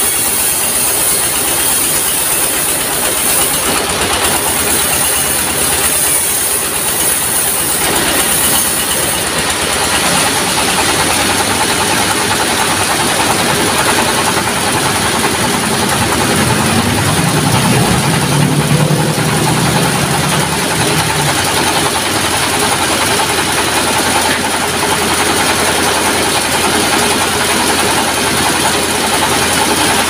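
Sawmill machinery running steadily: the diesel engine driving the saw, with a high hiss in the first nine seconds or so that then fades. A low hum swells for a few seconds past the middle.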